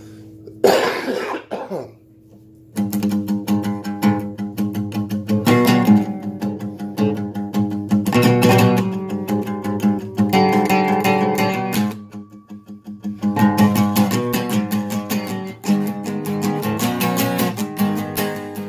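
A cough about a second in. Then, after a short gap, an acoustic guitar is strummed steadily to begin a song, with a brief break about twelve seconds in before the strumming resumes.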